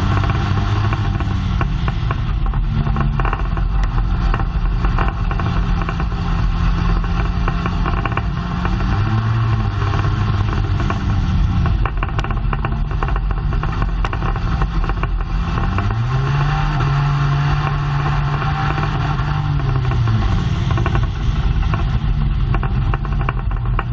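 Dirt track race car's engine running hard at racing speed, heard from inside the car. Its pitch rises and falls several times as the throttle opens and closes, with frequent clattering knocks throughout.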